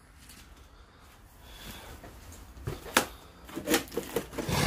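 Low room tone with a few sharp knocks and scuffs in the second half, like footsteps and objects shifting on a debris-strewn floor.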